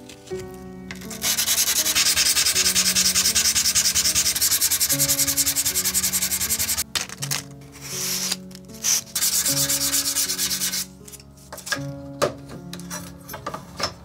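Sandpaper rubbed by hand along the steel blade of a Mizuno Tanrenjo wagyuto: rapid back-and-forth sanding strokes, several a second, for about five seconds. Then a short pause, a second, shorter spell of strokes, and a few scattered light knocks near the end.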